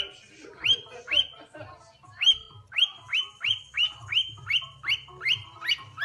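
Cockatiel whistling a string of short notes, each sweeping up and briefly holding; after two notes and a short break, a quick, even run of about three notes a second.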